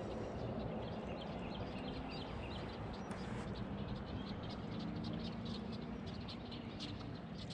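Frogs calling along the shoreline, a scatter of short, clicky calls repeated throughout, over a faint low hum.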